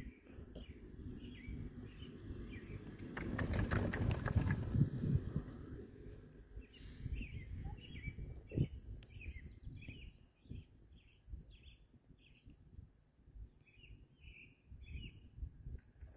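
Doppelmayr chairlift's chair passing under a tower's sheave assembly: a rattling rumble for about two seconds, about three seconds in, over a steady low rumble. Birds chirp repeatedly, most often in the second half.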